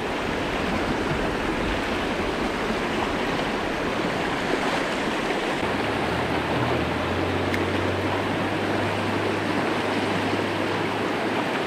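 Shallow mountain trout stream rushing over rocks and riffles in a steady rush of water.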